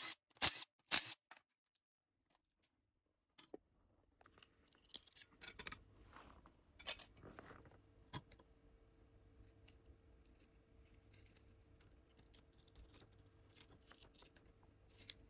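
Three short bursts about half a second apart from a Milwaukee cordless driver on a bolt of a Td5 cylinder head. These are followed by faint metallic clicks and scrapes of a small pick tool working at the fuel pressure regulator fitting.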